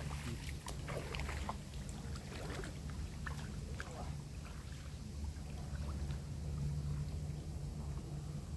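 Water splashing and sloshing as a man wades through shallow water and handles a wire-framed fish trap. Short splashes come in the first few seconds and thin out later, over a steady low rumble.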